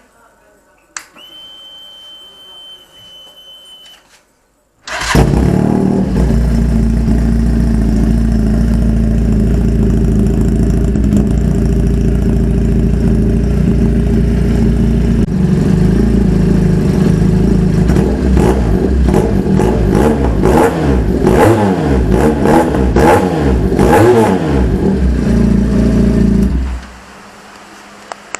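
400cc sports bike engine fitted with an SC Project aftermarket exhaust. A faint steady whine runs for a few seconds, then the engine starts about five seconds in and idles loudly, is blipped through several quick revs in the second half, and is switched off near the end.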